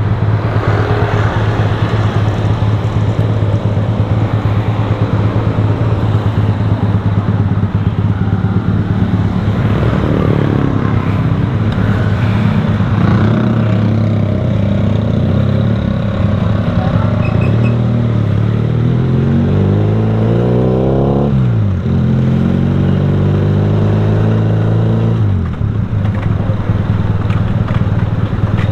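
Motorcycle engine running on the move, over steady road and wind noise. Its note climbs and drops off sharply twice, once about three-quarters of the way through and again near the end.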